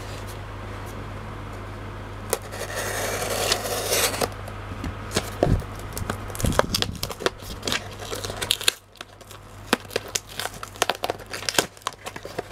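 A cardboard Priority Mail box being cut and torn open: a stretch of scraping, then irregular crackling and tearing of cardboard and tape, over a steady low hum.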